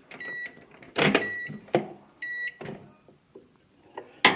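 Microwave oven keypad beeping three times, about a second apart, as its buttons are pressed. A louder knock comes about a second in, with a few lighter clicks and knocks around it.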